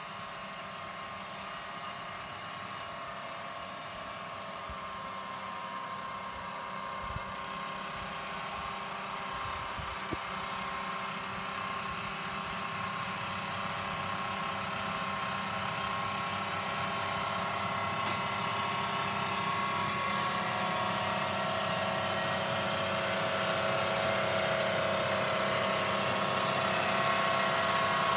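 Battery-electric two-wheel tractor pulling a moldboard plow: a steady whine from its electric motor and gear drive, made of several held tones, growing louder as it comes closer. Two light knocks about seven and ten seconds in.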